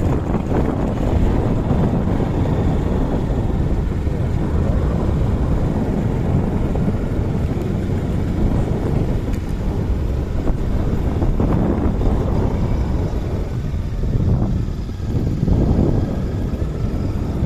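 Motorcycle on the move: wind rushing over the rider's camera microphone, with the bike's engine running underneath.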